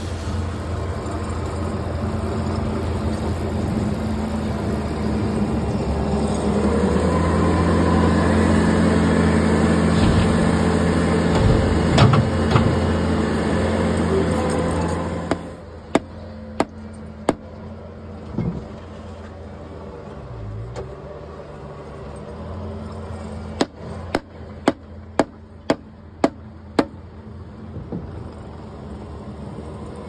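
Volumetric concrete mixer's engine running steadily under a hiss of cement powder pouring from a bulk bag into the bin. After a sudden cut, a red mallet knocks on a white pipe: three blows, a pause, then about seven quick blows.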